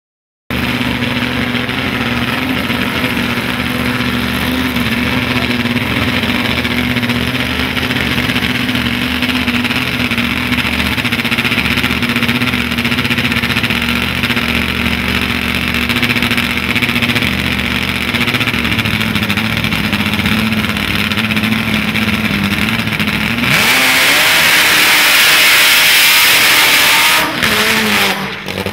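Top Fuel drag motorcycle's engine idling steadily and loud. About 23 seconds in it is revved hard into a burnout for a few seconds, then the revs drop away near the end.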